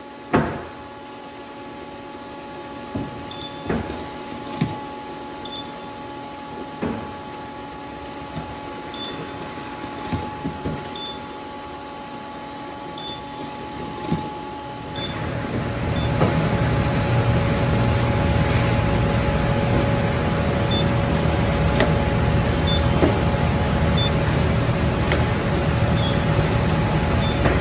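Print-and-apply box labelling conveyor line running: a steady machine hum broken by a few sharp knocks as cases move along. About halfway through, a louder, even rumble of the belt and roller conveyors takes over.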